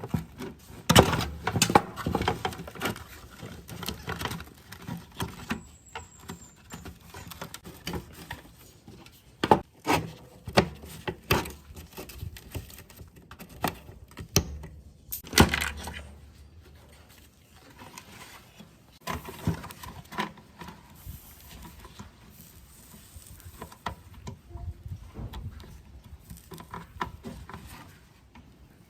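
Irregular clicks, taps and knocks of tools and parts being handled, several louder knocks among them.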